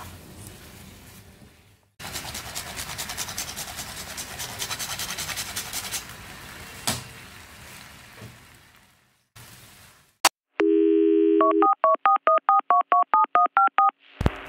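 A fast run of clicks for a few seconds. Then a telephone dial tone gives way to a quick sequence of about a dozen touch-tone keypad beeps, as when a number is dialled.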